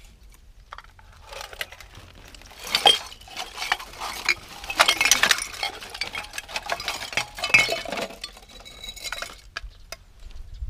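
Rubbish recovered from a lake bed, glass bottles among it, clinking and clattering together as it is handled, in a run of sharp knocks that thickens from a few seconds in and thins out near the end.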